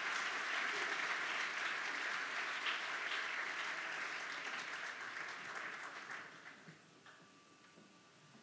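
Audience applauding, the clapping dying away about six to seven seconds in.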